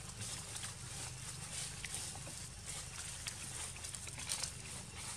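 Monkey moving through leafy tree branches: irregular rustling with light clicks and ticks over a steady outdoor hiss.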